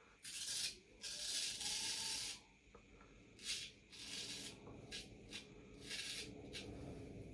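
Harlex straight razor scraping through lather and stubble in a series of separate strokes, the longest lasting over a second about a second in, the rest short.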